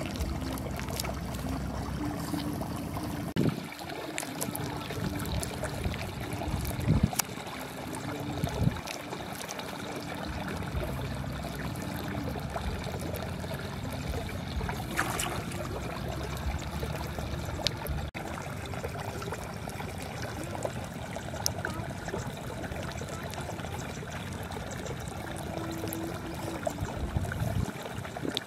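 Wet clay mud squelching and slapping under the hands as it is packed around a leaf-wrapped chicken, with irregular soft pats and wet clicks over a steady watery hiss.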